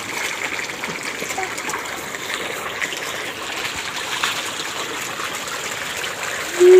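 Dense crowd of feeding carp thrashing at a pond's surface, making steady, continuous splashing and churning water. A loud held tone starts just at the end.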